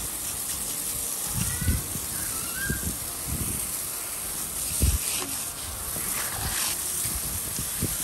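Garden hose spraying water onto a freshly ground concrete slab, a steady hiss of spray, with a few low thumps.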